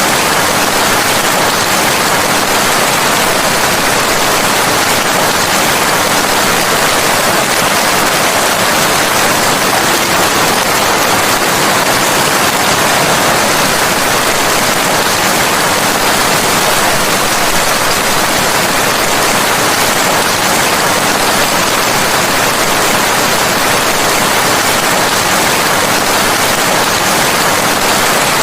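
Steady, heavy rain: a dense, even hiss with no separate drops, thunder or change in level.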